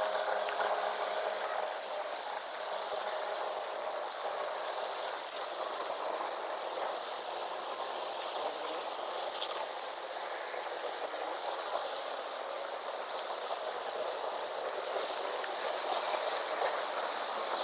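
Steady outdoor rushing noise with faint crackling now and then.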